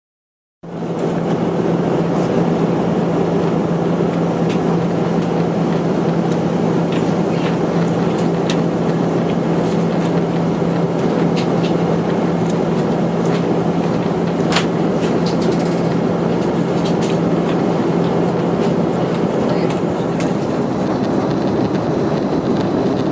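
Cabin noise inside a Swiss Airbus A340 airliner: a steady rumble of engines and airflow with a constant low hum and scattered small rattles, starting abruptly about half a second in.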